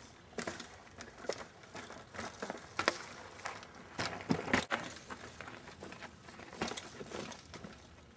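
Mountain bike riding downhill on a dirt trail: irregular clattering and knocking from the tyres, chain and frame over rough ground, with a few sharper knocks about three and four and a half seconds in.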